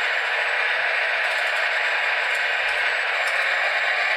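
Steady whirring hiss of a radio-controlled Wedico Cat 966G model wheel loader's electric drive and hydraulic pump running, with a thin high whine and a few faint light ticks midway.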